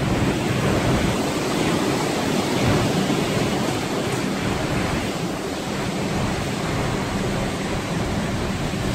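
Storm wind and heavy seas breaking against a large ship, a steady loud rushing noise, with a low steady hum underneath.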